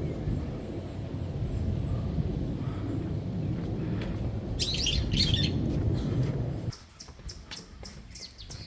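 Birds chirping in a short flurry over a loud low rumbling noise. The rumble cuts off abruptly near the end, leaving a rapid, regular high ticking.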